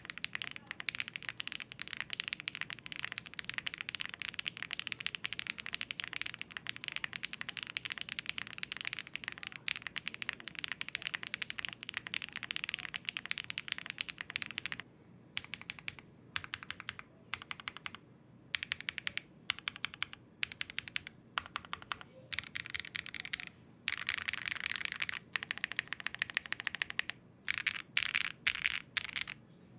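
Zoom65 V3 mechanical keyboard in its non-load-bearing spring mount being typed on: a fast, continuous run of key clacks, breaking about halfway into shorter bursts of typing with brief pauses between them.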